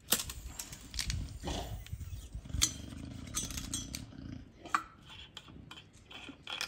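Plastic protective cap and strap being cut and worked off the top stem of a new shock absorber with a small blade: several sharp plastic clicks and snaps, over a low rubbing and scraping of handling for the first few seconds.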